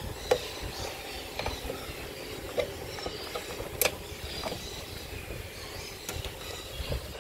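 Scattered small clicks and taps of hands pushing wires into place and handling the plastic breakers inside a distribution box, the loudest click about four seconds in, over a low rumble.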